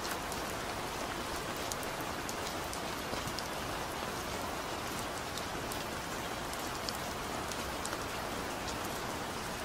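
Steady rain falling: an even hiss with scattered sharper ticks of single drops.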